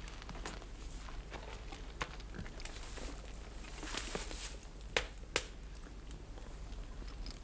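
Quiet movement sounds, soft rustling and scattered small clicks with two sharper clicks about half a second apart near the middle, over a steady low hum.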